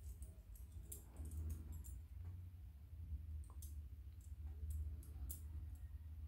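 Faint, irregular light clicks and clinks of a metal wire puzzle's steel loops and small chain knocking together as they are handled, over a low steady hum.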